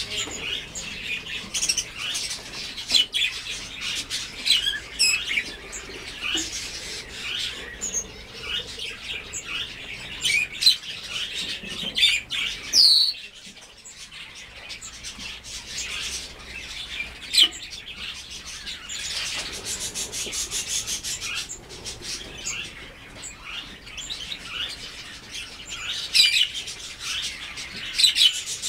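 Blue whistling thrush calling: a run of short chirps and sharp notes mixed with quick clicks, with one loud curved whistle about thirteen seconds in.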